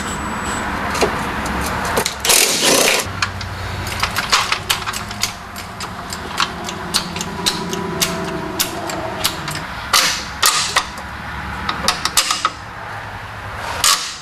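Metal tools clanking and knocking on fasteners under a car during transmission removal, with a few short rattling bursts, the longest about two seconds in. A steady low hum runs underneath.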